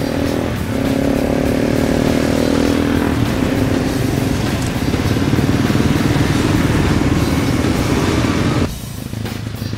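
Dual-sport motorcycle engines running and revving, with music underneath. The sound drops off abruptly near the end.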